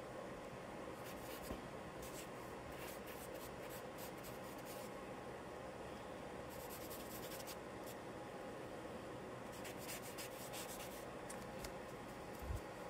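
Charcoal scratching on paper in groups of quick strokes with short pauses between them, and a brief soft low thump near the end.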